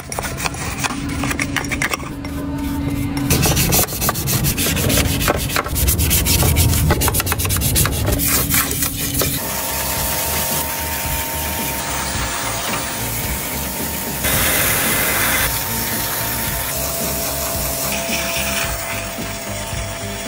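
Rapid hand rubbing and scraping, like filing or sanding, on the radiator fan's electric motor while it is being repaired for a collapsed bearing. About halfway through, this gives way to a steadier rasping noise with a faint hum.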